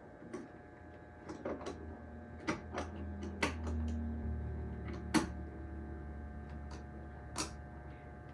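Scattered light clicks and knocks of door-closer hardware being handled and fitted, the sharpest about five seconds in, over a low hum that swells and fades.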